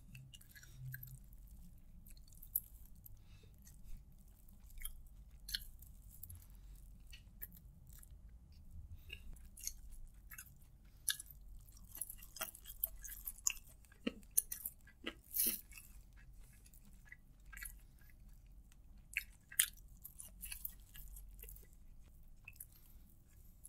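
Close-miked chewing of fried rice eaten by hand: soft wet mouth clicks and smacks scattered irregularly, a few louder ones in the second half.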